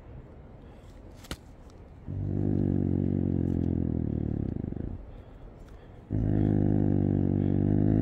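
Snow leopard giving two long, low growls, each about three seconds, the second wavering in pitch near its end.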